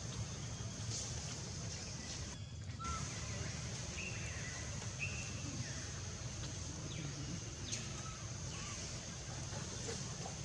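Outdoor ambience: a steady low rumble under scattered short, high animal chirps and falling calls, several of them between about four and nine seconds in.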